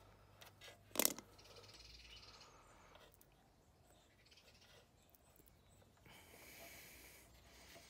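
Faint scraping and rustling of a thin electrical cable's outer sheath being cut and peeled back by hand, in several short patches, with one sharp click about a second in.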